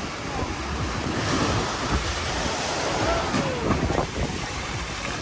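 Ocean waves washing against the beach and seawall, with wind buffeting the microphone as a low rumble.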